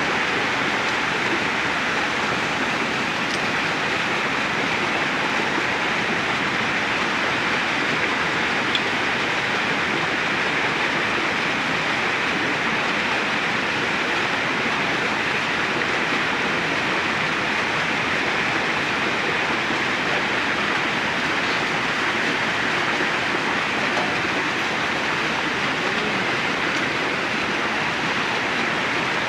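Steady rushing of flowing water, an even unbroken noise.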